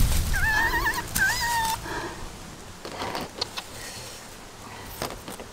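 Chicken squawking twice, each a wavering call about half a second long, in the first two seconds, followed by a few faint rustles and clicks of handling.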